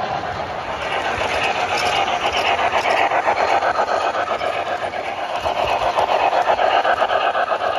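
O scale model trains running on the layout's track, the wheels and running gear giving a fast, even rhythmic clatter of about five beats a second.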